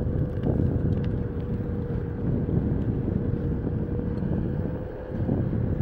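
Onewheel GT rolling over pavement: a steady rush of wind on the microphone and tyre rumble, with a steady whine from the board's hub motor that fades out near the end.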